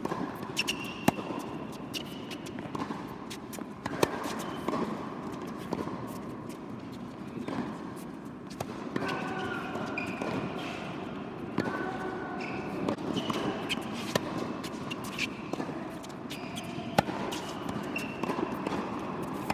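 Tennis rally on an indoor hard court: sharp racket hits on the ball and ball bounces every few seconds, with short squeaks of shoes on the court surface. The hits ring in a large, reverberant hall.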